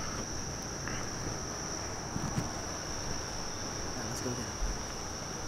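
Crickets chirping in a steady, unbroken high-pitched trill, with a few faint knocks near the middle.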